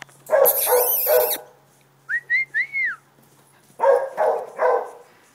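Great Dane barking: three loud, harsh barks, then three more about four seconds in. Between the two sets come four short whistled notes, each rising and falling, the last the longest.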